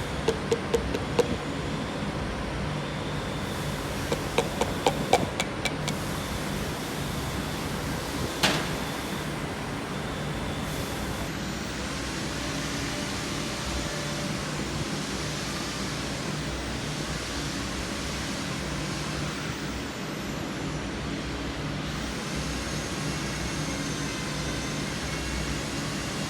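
Quick runs of sharp taps, about five in the first second and more around four to six seconds in, then one louder single knock, over a steady hum; work on engine parts during reassembly.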